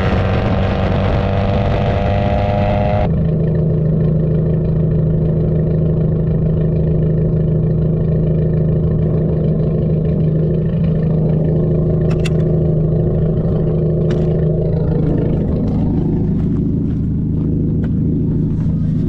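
Dodge Neon four-cylinder exhaust heard from behind the car, a dull tone. It starts under way with road and wind noise and the engine pitch rising slightly as it accelerates. After about three seconds it changes abruptly to a steady idle drone, with two sharp clicks midway and knocks near the end as the car door is opened.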